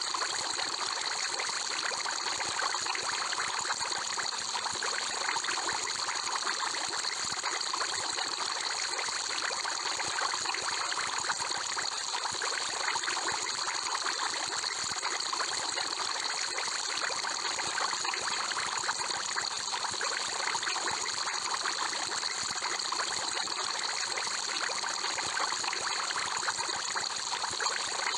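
Aquarium air bubbles rising from an air stone, a steady, even bubbling and trickling of water.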